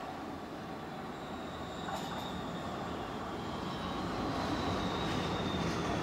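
RET metro train pulling into the station, its running noise on the rails growing steadily louder as it approaches, with a faint high whine that slowly falls in pitch.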